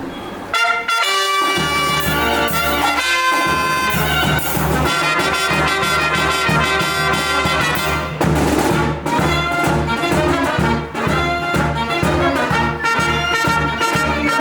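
Live brass band playing: trumpets and trombones start up together about half a second in, over a steady beat.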